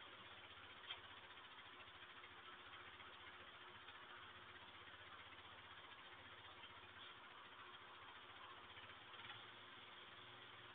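Near silence: the steady hiss and faint hum of a security camera's microphone, with one faint click about a second in.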